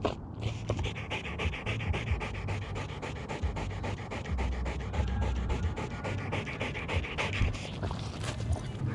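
A dog panting fast and rhythmically, heard close up from a camera worn by the dog, over a steady low rumble.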